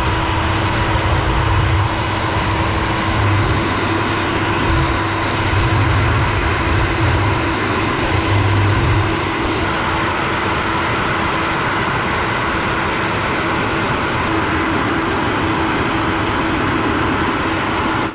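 Hair dryer running: a steady rush of blown air with a constant motor hum at one pitch. A low buffeting of air on the microphone swells and dips in the first half and settles about halfway through.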